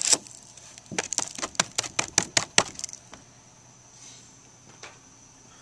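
Paper-wrapped ammunition packets being handled inside an opened metal spam can: a short rustle at the start, then a quick run of about a dozen sharp crackles and clicks over about two seconds.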